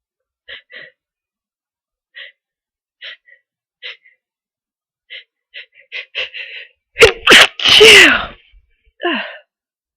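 A person with a head cold building up to a sneeze: a series of short catching inhalations that come faster and faster, then a loud sneeze about seven seconds in. A short voiced "phew" exhale with falling pitch follows.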